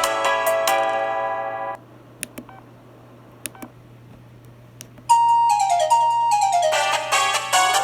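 LG enV VX9900 phone's built-in ringtones playing through its speaker: a synthesized melody stops about a second and a half in, a few clicks follow in the pause, and a new ringtone starts suddenly about five seconds in with quick runs of notes. A steady low hum runs underneath.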